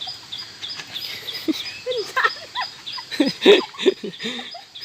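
Outdoor rural ambience of birds calling: a high chirp repeats about four times a second, and louder short, low, bending calls crowd together about three to four seconds in.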